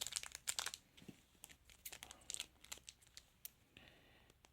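Foil trading-card packet crinkling and tearing as it is opened: clusters of sharp crackles through the first three seconds, dying down near the end.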